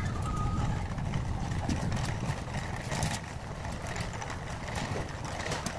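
Wire shopping cart being pushed along: a steady low rumble from its rolling wheels, with the metal basket rattling and clicking now and then.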